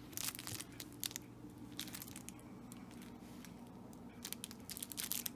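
Mini wirehaired dachshund puppy chewing and shaking a plush toy, making crinkling, crunching noises in short bursts: several in the first half, then a quicker cluster near the end.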